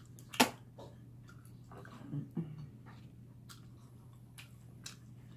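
Close-up mouth sounds of someone eating mussels: a sharp click about half a second in, then a few soft smacks and clicks, over a low steady hum.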